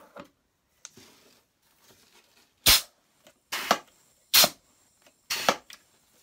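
Pneumatic bath bomb press cycling: four short, sharp blasts of compressed air, about a second apart, as its air cylinder drives down on the mold and releases, with a faint high whine between them.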